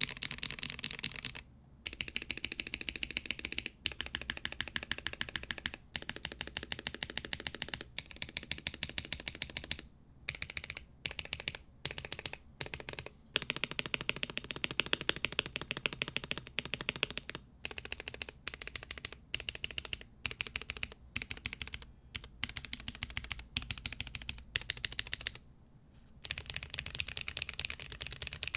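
Typing on a Womier/Gamakay K87 tenkeyless mechanical keyboard with lubed Drop Holy Panda tactile switches: fast, continuous keystrokes in runs of a few seconds with short pauses between them. The sound is loud, clacky and poppy.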